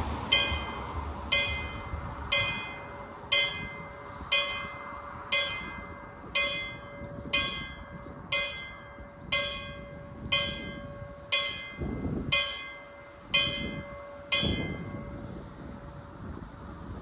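Danish level crossing bell ringing with single strikes about once a second, each ringing on briefly; the strikes stop about fourteen seconds in, and a low rushing noise swells up near the end.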